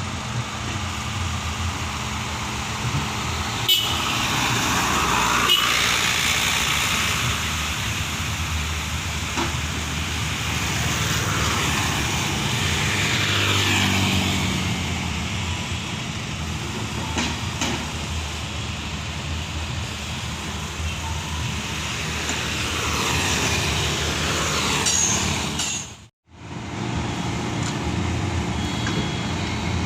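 Komatsu PC78US excavator's diesel engine running, with sounds that rise and fall in pitch several times as the machine works. The sound drops out briefly near the end.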